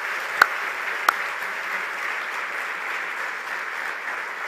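Audience applauding steadily, a dense patter of many hands, with a few sharper single claps standing out in the first second or so.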